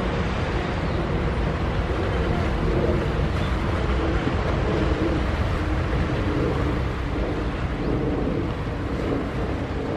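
Boat engines droning with a wavering hum over a steady low rumble of wind on the microphone, a little louder in the middle and easing near the end.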